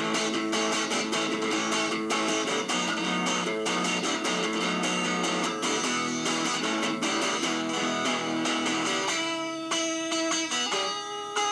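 Electric guitar music with rapid picked notes and strums. About nine seconds in, the playing thins to fewer, separate notes.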